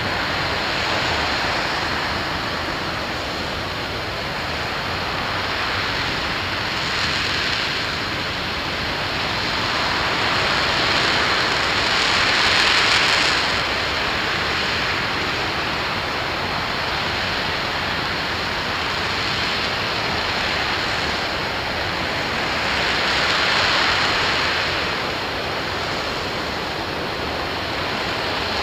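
Aerojet Rocketdyne RS-25 liquid-hydrogen/liquid-oxygen rocket engine firing steadily in the middle of a long hot-fire test: a continuous, even rushing noise. The hiss swells and eases every several seconds, loudest a little before halfway and again near the end.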